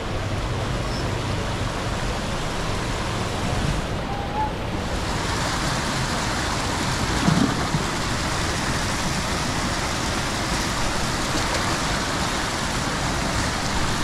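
Steady rushing noise, like running water or wind on the microphone, that grows fuller and brighter about five seconds in, with a brief bump about seven seconds in.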